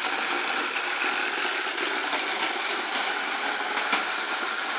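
Vacuum cleaner running steadily with an even whirring noise as a child pushes it along.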